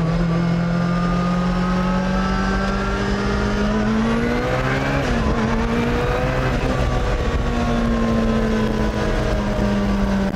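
Lancia Delta S4 Group B rally car's turbocharged and supercharged four-cylinder engine running under steady load on the road. Its pitch climbs slowly over the first half, dips briefly near the middle, then holds steady.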